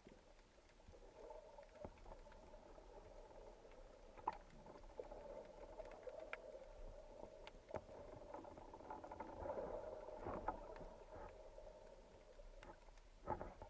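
Faint, muffled underwater ambience: a steady low hum with scattered sharp clicks and knocks, one louder knock about four seconds in and a short cluster near the end.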